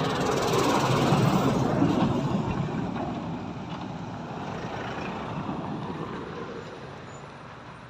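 A heavy goods truck driving past on the road: its engine and tyre noise swells as it passes close about one to two seconds in, then fades steadily as it pulls away.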